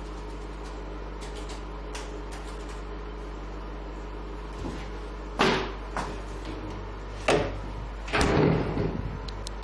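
Faint laptop keyboard clicks over a steady electrical hum, then three loud knocks and a longer rattling bump near the end as things are handled.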